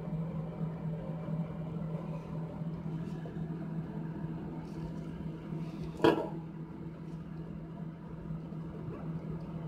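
A pop-up sink drain stopper being pressed down by a finger, giving one sharp metallic click about six seconds in, over a steady low hum.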